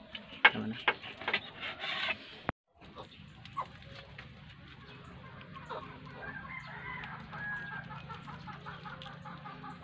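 A knife blade knocking and cutting against a ceramic plate in several sharp strokes for the first couple of seconds. After a short break, chickens cluck in the background, with a rooster crowing.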